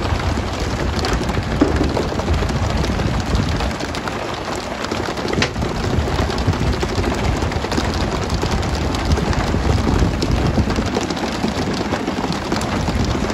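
Steady rain-like spatter of a tuna boat's water sprays and splashing sea, over a steady low rumble, with one sharp knock about five seconds in.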